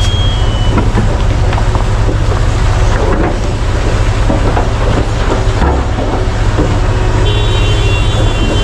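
Heavy diesel mining machinery running under load, most likely the Komatsu PC1350-11R mining excavator at work: a loud steady low drone with repeated clanks and knocks. A few high steady tones come in near the end.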